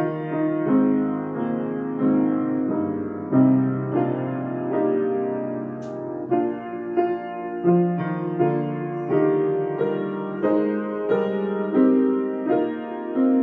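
Piano playing a slow piece of steady, sustained chords, a new chord struck roughly every three-quarters of a second.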